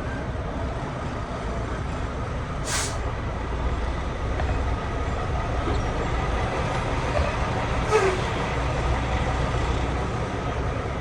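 Semi-truck diesel engine running low and steady while the rig backs up, with two short hisses of air from the air brakes, one about a quarter of the way in and one about three-quarters in.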